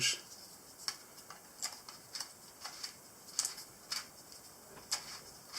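Light, irregular clicks and taps of a wall outlet and its small parts being handled and fitted.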